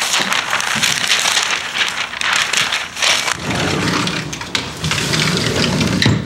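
Newspaper pages rustling and crumpling, a dense crackle of paper handled roughly.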